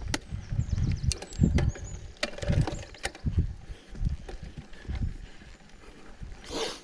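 Mountain bike riding over a rough dirt trail: irregular thumps and rattles from the bike over bumps, with sharp clicks and knocks. A brief rushing noise, like a gust on the microphone, comes near the end.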